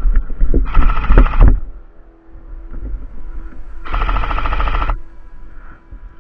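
Airsoft rifle firing two full-auto bursts, each about a second long, about three seconds apart, with an even rapid rattle. Before the first burst there are irregular thumps and knocks from footsteps and gun handling.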